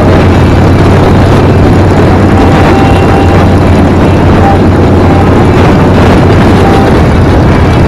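Harley-Davidson V-twin motorcycle engine running steadily at cruising speed, loud, with wind rushing over the microphone.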